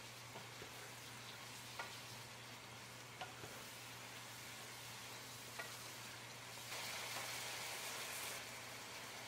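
Diced shiitake and dried tofu sizzling as they stir-fry in a pan, with a few light clicks of the spatula against the pan. The sizzle swells louder for about two seconds near the end, over a steady low hum.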